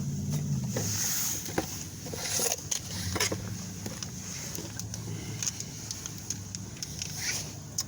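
Scattered light clicks and knocks of hand tools and car parts being handled while a tie rod is fitted, over a steady low hum.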